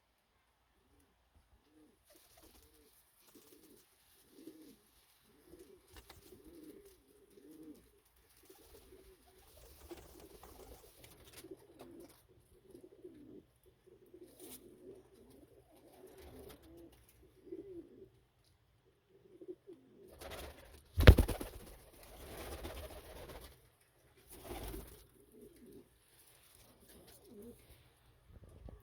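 Domestic pigeons cooing over and over in low, warbling calls. About two-thirds through, a sudden loud knock is followed by a few seconds of rustling.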